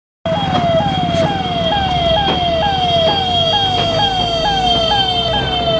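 Ambulance siren wailing in a fast repeating cycle, each a quick jump up and slower fall in pitch about twice a second, over a steady high tone and low engine rumble; it starts suddenly.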